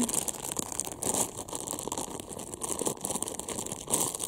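Clear plastic bag crinkling and crackling as it is handled and pulled open, with a louder rustle near the end.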